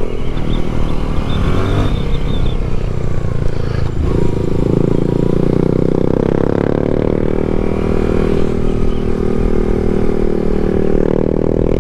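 Yamaha MT-07's 689 cc parallel-twin engine running under way. The revs fall over the first few seconds, a gear change comes about four seconds in, and then the engine pulls with rising revs that level off.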